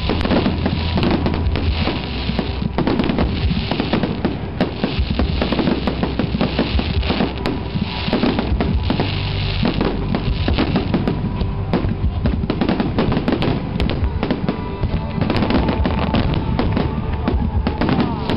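Aerial firework shells bursting in a dense, continuous barrage of bangs and pops. Music plays underneath.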